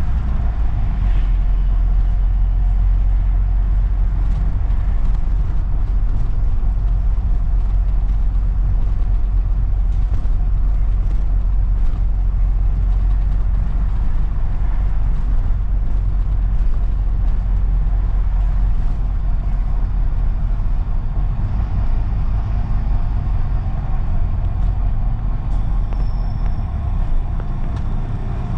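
London double-decker bus running along the road, heard on board as a steady deep engine and road rumble. Near the end it eases off as the bus slows for a stop, with a brief high squeal just before.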